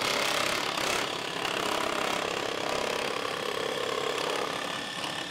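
Dremel Moto-Saw compact scroll saw running steadily, its reciprocating blade cutting a curve through plywood.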